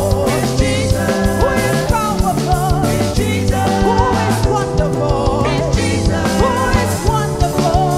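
Upbeat praise and worship music with a steady beat and held chords, with a singing voice over it.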